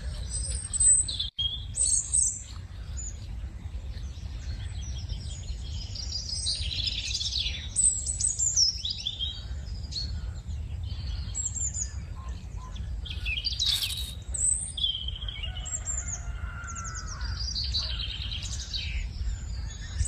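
Many birds chirping and singing, a dense chorus of short calls and trills over a steady low hum.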